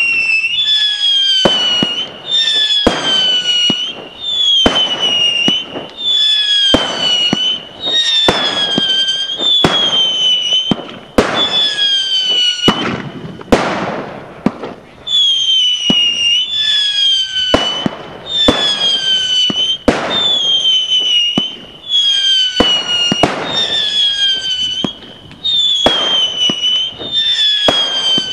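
Howling Tiger firework compact cake firing shot after shot, each shot a loud screaming whistle that dips slightly in pitch, about one every one and a half seconds, with sharp bangs from the launches and star bursts. About halfway through there is a break of a second or two filled with a rushing hiss and crackle instead of a whistle.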